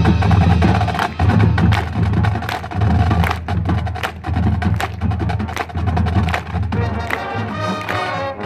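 Marching band music: a steady stream of sharp percussion strikes over pulsing low sustained notes.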